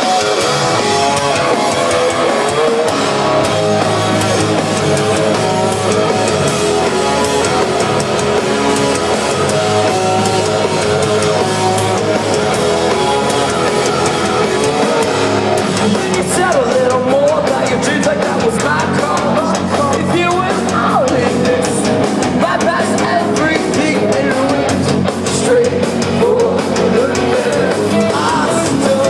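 Rock band playing live: electric guitars and drum kit, with a singer's voice coming in about halfway through.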